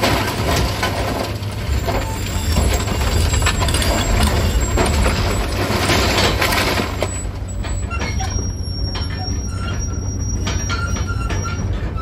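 Komatsu 200 excavator at work on demolition debris: engine running with a dense clatter of knocks and crunching for about seven seconds, then a thinner rumble with a thin, high metallic squeal near the end.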